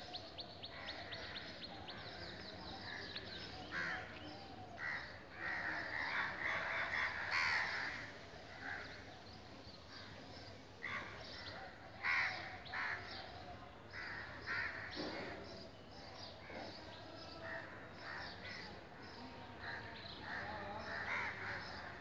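Crows cawing, scattered calls on and off, several in quick runs.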